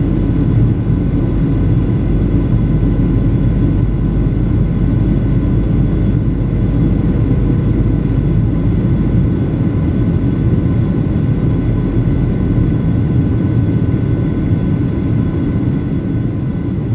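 Cabin noise inside a Boeing 737-900 in flight: the steady rumble of airflow and its two CFM56-7B engines, with several steady whine tones over it. The deepest part of the rumble eases a little after about ten seconds.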